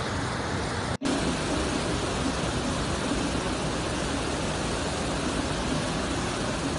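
Fast-flowing floodwater rushing, a steady, even noise, with a brief gap about a second in where one recording cuts to the next.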